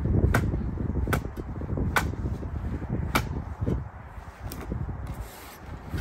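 Steel spade digging into root-filled turf and soil: four sharp chopping strikes in the first three seconds or so, then quieter scraping and shifting of earth.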